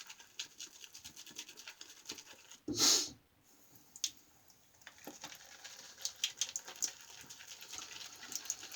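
Gem single-edge safety razor scraping through lathered stubble in short, quick scratchy strokes. About three seconds in there is a brief louder rush of noise, a short pause, and then the strokes start again.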